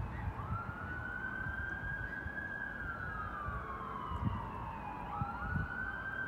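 Emergency-vehicle siren wailing. Its tone sweeps up quickly, holds, slides slowly down over a few seconds, then sweeps up again near the end.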